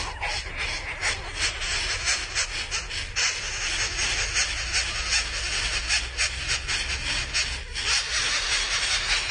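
Greater coucal nestling giving a raspy, hissing begging call, a rapid run of noisy hisses repeated over and over with its beak held open.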